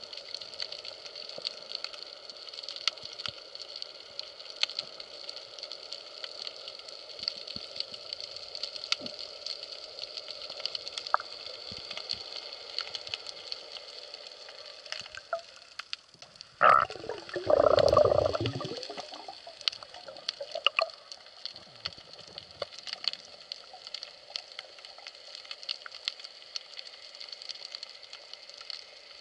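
Underwater ambience picked up by a camera in its housing: a steady hiss full of small clicks and crackles. About halfway through there is a sharp knock, followed by a louder rushing, bubbling burst that lasts about two seconds.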